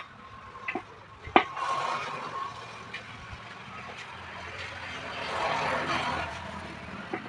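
A motorcycle passing on the road, its noise swelling and fading about five to six and a half seconds in. Earlier there are a few sharp knocks, the loudest about a second and a half in.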